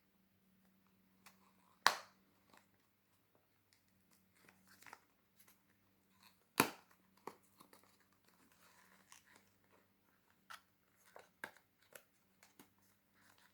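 Hands handling packaging: light rustling and crinkling with scattered small clicks and taps, and two sharper clicks about two seconds and six and a half seconds in.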